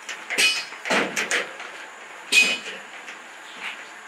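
Sharp metallic clinks and knocks, several in quick succession in the first second and a half, then a louder ringing clink about two and a half seconds in.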